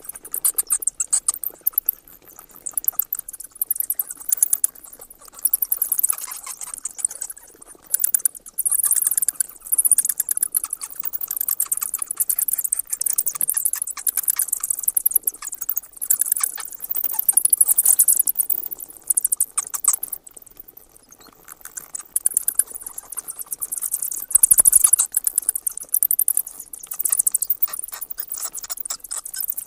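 Bat calls: rapid trains of high-pitched clicks and chatter coming in bursts of a few seconds, with a short lull about two-thirds of the way through.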